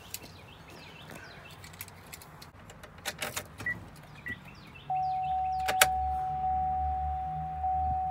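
Keys clicking at the ignition of a 2004 GMC Yukon Denali, then, about five seconds in, a steady high tone over a low hum as the key is turned to start it; the engine has not yet caught.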